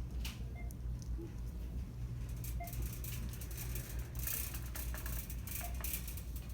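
Store ambience: a steady low hum with scattered rustling and light clicks, busiest a little past the middle, and a few short faint beeps.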